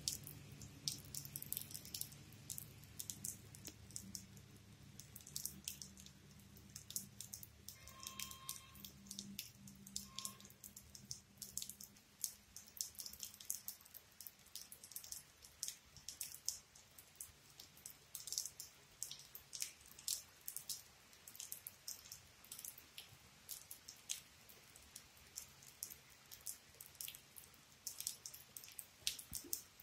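Rainwater dripping close by: quiet, irregular sharp drips throughout. A low steady hum fades out over the first dozen seconds, and two brief high tones sound about eight and ten seconds in.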